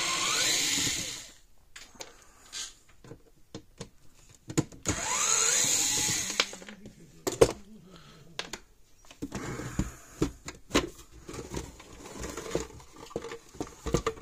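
Small cordless electric screwdriver running in two bursts, about a second and a half and about two seconds long, its motor whine rising as it spins up, backing screws out of a plastic fence-charger case. Between and after the bursts come sharp clicks and clatter as the case and screws are handled.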